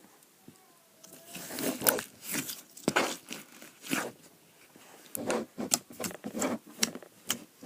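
Slime being stretched and squished in the hands: irregular sticky crackles, squelches and sharp clicks, starting about a second in.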